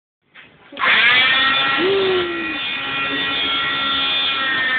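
Oscillating cast saw switched on about a second in, its motor whine settling quickly to a steady pitch and running on while it cuts through a fibreglass arm cast.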